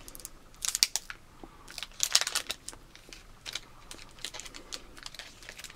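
Scattered crinkles and clicks of a candy bar's plastic wrapper being handled, with a bite into and chewing of a coconut-filled milk chocolate bar.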